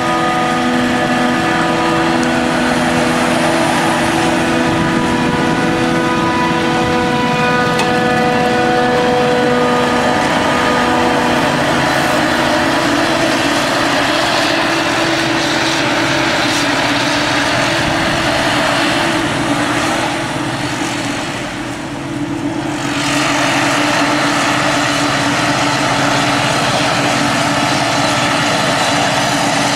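Claas Jaguar self-propelled forage harvester working in maize, a loud steady machine drone with a whine that fades about halfway through. The sound dips briefly about two-thirds of the way in, then returns.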